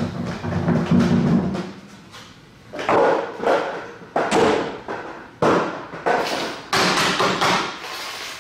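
Hard plastic objects thrown across a room, hitting the floor and walls in a run of about seven loud clattering bangs from about three seconds in, each ringing out in the room's echo.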